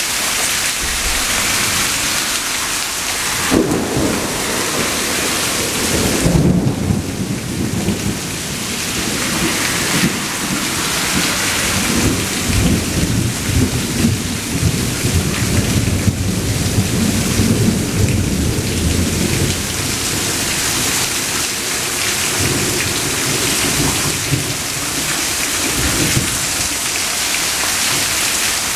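Steady rain falling, with a long roll of thunder. The thunder breaks in about three and a half seconds in, rumbles on for some fifteen seconds, then dies away with a last smaller swell near the end.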